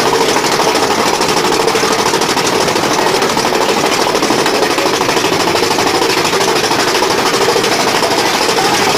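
Mine-train roller coaster car clattering loudly along its track, a fast, steady rattle that doesn't let up.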